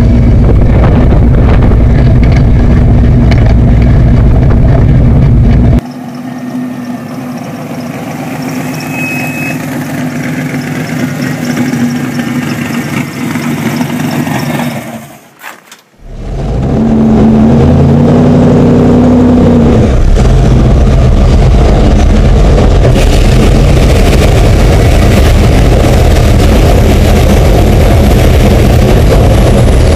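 A 1935 rat-rod 4x4 truck's GM LS V8 running loud. It drops to a quieter stretch for about ten seconds, then cuts out briefly about halfway through. It comes back loud, revving up for a few seconds, and runs on loud to the end.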